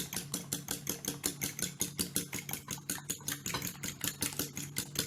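Eggs being beaten in a bowl, the utensil clicking against the bowl in a fast, even rhythm of about six or seven strokes a second, over a steady low hum.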